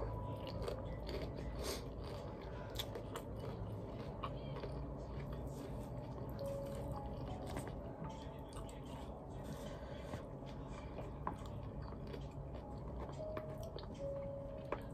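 A person chewing and biting food, a meal of rice and chicken, with many small irregular crunchy clicks over a steady low hum.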